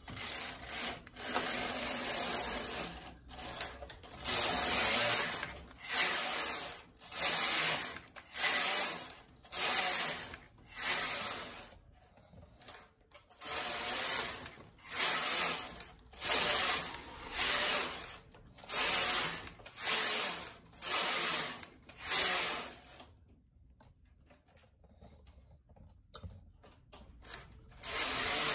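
Knitting machine carriage pushed back and forth along the needle bed, knitting row after row: a noisy sweep about once a second, some twenty passes, then a pause of a few seconds before the passes start again near the end.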